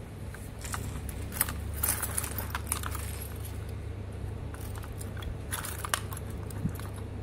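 Keys on a keyring jangling, with small irregular clicks of a key tip and fingers against the plastic casing of a SmartTAG unit while its battery-cover button is pressed, over a low steady hum.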